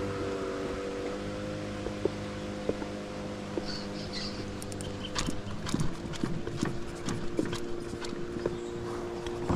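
A small boat motor hums steadily, its pitch shifting about a second in and again near six seconds. From about five seconds, light irregular clicks and knocks sound over it.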